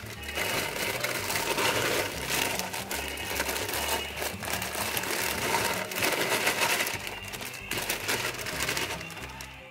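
Plastic bag crinkling and rustling as chili peppers are shaken out of it into a pan of water, over background music.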